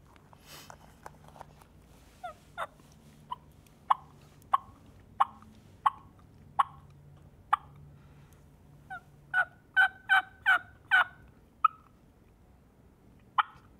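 Wild turkey hen sounds on a diaphragm mouth call. A slow, even run of sharp single notes comes about every two-thirds of a second, then a quicker string of yelps, each breaking from a low note to a higher one, and one last note near the end.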